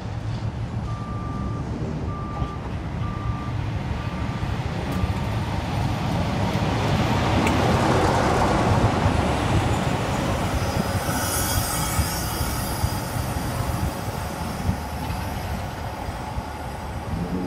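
Diesel locomotive engine running as the locomotive passes close, growing louder to a peak about halfway through and then easing off. A string of five short high beeps sounds in the first few seconds, and a brief high hiss comes after the locomotive has passed.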